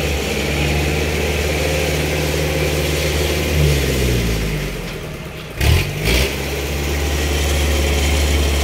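Kubota rice combine harvester's diesel engine running steadily, then dropping in pitch about four seconds in. Two loud, sharp knocks follow a couple of seconds later, and the engine then runs steady again.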